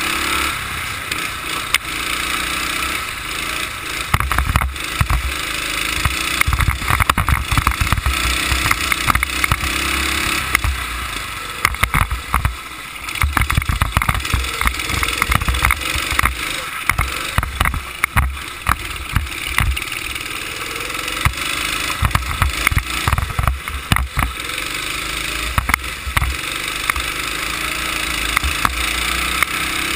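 Go-kart engine running hard around a lapping circuit, heard from on board, its pitch rising and falling through the corners and straights, with irregular low buffeting and knocks on the microphone throughout.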